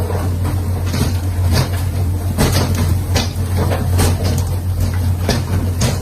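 A steady low mechanical hum, such as a running engine or machine, under frequent irregular knocks and thuds.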